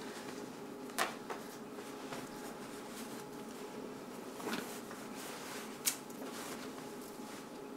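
Patient-lift sling fabric being spread out under a patient on a hospital bed: soft rustling with a few short clicks, the sharpest about a second in and near six seconds, over a faint steady room hum.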